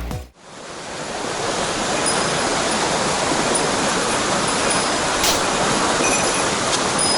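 Mountain stream water rushing in a steady, even wash, fading in just after the start.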